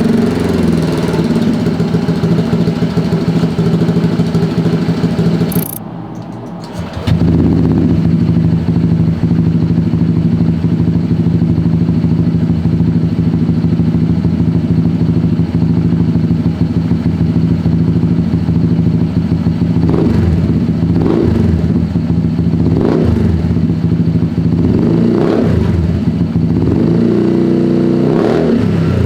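Automatic scooter engine running through a carbon-steel EvoX STD aftermarket exhaust: a steady idle that is briefly cut about six seconds in, then idling with the Easy DB Killer baffle removed. Several quick throttle blips come in the last ten seconds.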